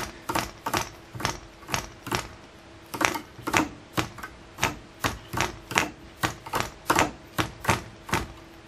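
Clan 0.24cc model diesel being hand-flicked by its propeller to start it: a sharp snap over compression about two and a half times a second, without the engine catching into a run.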